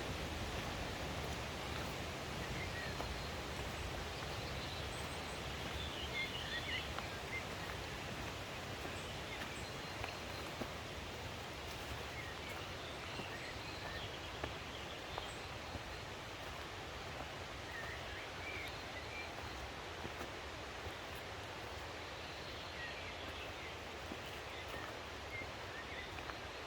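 Steady rushing of a mountain stream, with a few faint bird chirps about six seconds in, around seventeen seconds in and again near the end.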